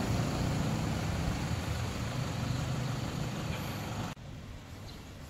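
An engine running steadily with a low hum, cut off abruptly about four seconds in, leaving a fainter, steady outdoor hiss.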